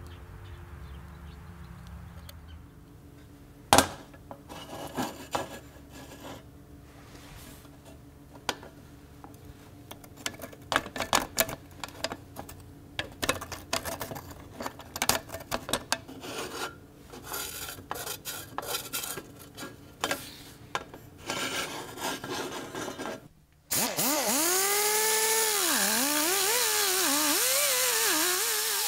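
Scattered clicks, knocks and scrapes from a rusty cast-iron toy safe bank being handled, its small door worked open. Near the end a hand-held rotary grinder with a small sanding disc starts up, loud and steady, its whine rising and dipping in pitch as it is pressed onto the rusty iron.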